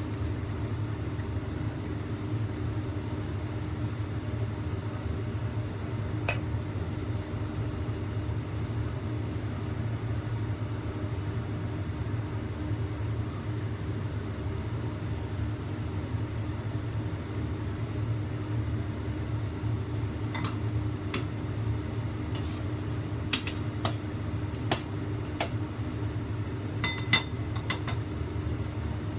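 Steady low hum and rush of a gas stove burning under a lidded wok of steaming fish. From about two-thirds of the way in, a handful of sharp metallic clinks as a pot on the stove is handled, the loudest near the end.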